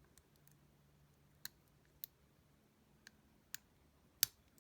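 Lock pick working the pins of a 5-pin Cisa pin-tumbler lock held under tension: a handful of sharp, separate clicks, the loudest about four seconds in.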